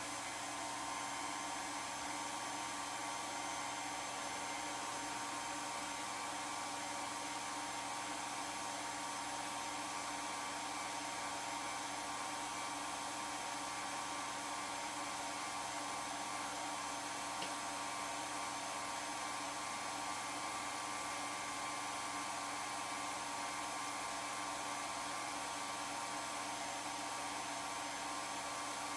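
Film projector running: a steady whir of its motor and fan with a constant hum in it.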